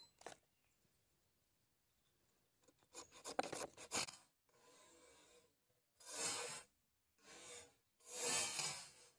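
A ferrocerium fire-starter rod scraped with a steel striker to throw sparks onto wood shavings. After a quiet start there is a run of quick short scrapes about three seconds in, then longer rasping strokes about a second apart, the last the longest.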